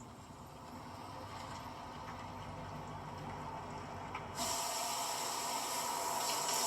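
Hissing rush of noise from a film soundtrack played over a car audio system, swelling slowly and then jumping up sharply and brightening about four and a half seconds in.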